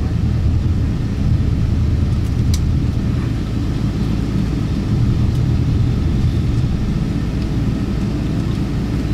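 Steady low rumble inside the cabin of a Boeing 777-200ER on the ground, its Rolls-Royce Trent 800-series engines at idle, with a single sharp click about two and a half seconds in.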